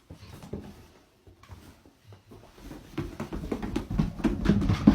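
A dog's paws thudding and clicking quickly on stairs as it comes down, the steps getting louder from about halfway in.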